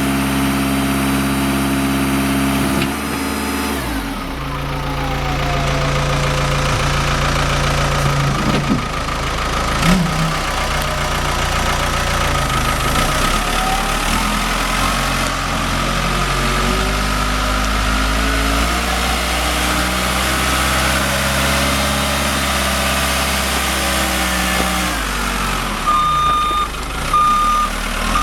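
Case 580 Super M backhoe loader's diesel engine running, its speed dropping and picking up again as the machine works, with a whine that falls in pitch about four seconds in. Near the end the reverse alarm starts beeping, about one beep a second.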